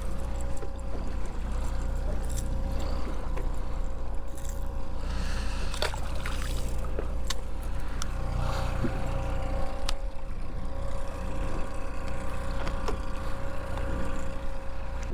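Boat's outboard motor running steadily at trolling speed, with wind and water noise and a few light clicks.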